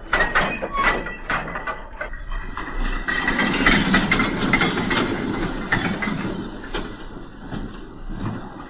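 Model railway train in motion: a Dapol B4 tank engine model propelling goods vans, wheels clicking and clattering over the rail joints and points. The locomotive's digital sound unit supplies steam effects. A quick run of sharp clicks about a second in gives way to a denser clatter from about three seconds.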